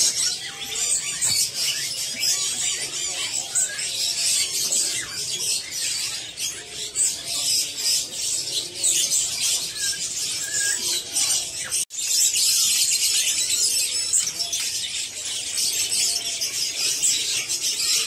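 Many caged songbirds chirping and twittering at once, making a dense, high, busy chorus. It cuts out for an instant about two thirds of the way through.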